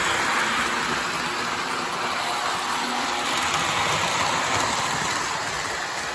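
Three-rail model train, a New Haven electric locomotive pulling passenger cars, running along the track with a steady rolling whirr of wheels and motor, easing off a little near the end as it moves away.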